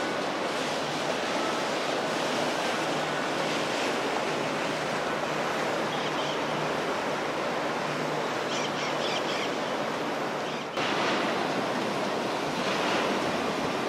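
Steady rush of river water and wind buffeting the microphone, with a faint low steady hum in the first half; the sound shifts abruptly about eleven seconds in.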